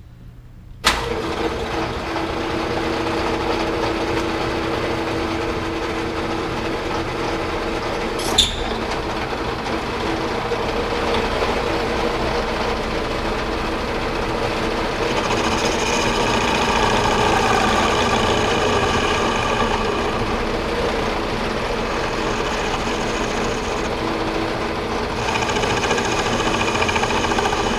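Metal lathe switched on about a second in and running steadily under power, with a single sharp click a few seconds later. From about halfway a higher pitched whine joins the running, drops out for a moment near the end and comes back.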